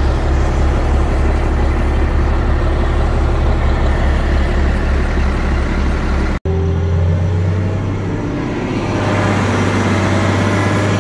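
Heavy diesel machinery engine running with a low throb. About six seconds in, an abrupt cut switches to a steadier engine drone from the off-road haul truck driving across the field.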